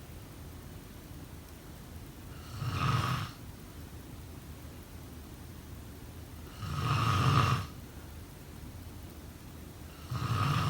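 A sleeping person snoring: three snores about four seconds apart, each lasting under a second. The last one starts near the end.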